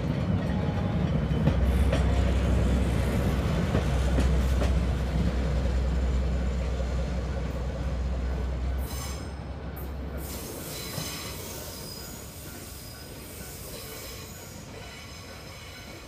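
DE11 diesel-hydraulic locomotive passing and moving away: a low engine drone with rail noise that drops away about nine or ten seconds in, then fades. A faint high wheel squeal comes from the rails as it recedes.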